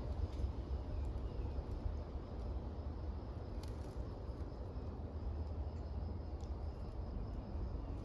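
Wind rumbling on the microphone outdoors, with a faint thin high steady tone like insects and a single faint click about three and a half seconds in.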